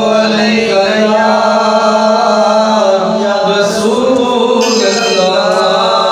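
A man chants a naat, a devotional Islamic poem, into a handheld microphone, holding long drawn-out melodic notes.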